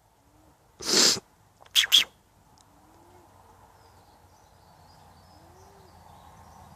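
An alpaca sneezing: one noisy blast through the nose about a second in, then two short sharp ones in quick succession.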